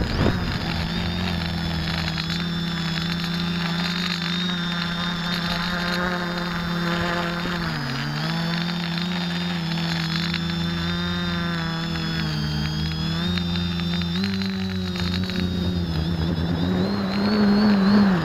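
X550AIOP quadcopter's motors and propellers buzzing steadily, heard from the camera riding on the craft in flight. The pitch dips briefly about eight seconds in, then climbs and grows louder near the end.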